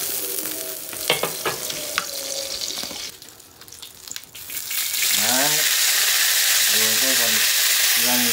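Metal spatula scraping and knocking against a wok of hot melted lard, then about five seconds in a loud, steady sizzle as handfuls of rau bò khai greens go into the hot fat.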